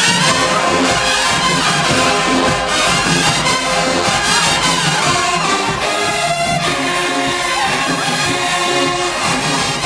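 HBCU marching band playing in the stands, loud brass with trumpets and trombones over a steady drum beat.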